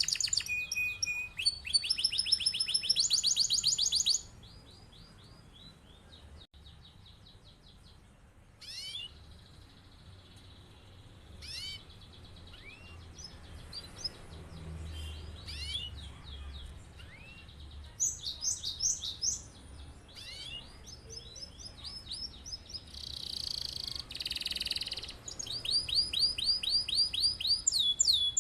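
Domestic canary singing a long song of rapid rolling trills, loud for the first four seconds and again near the end, with softer, scattered chirps and short phrases in between and a brief buzzy phrase a few seconds before the final trills.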